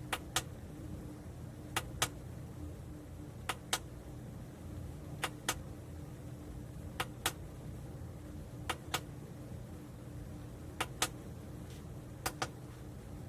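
Sharp clicks in pairs, a quarter second apart, repeating evenly about every second and three-quarters over a low steady hum.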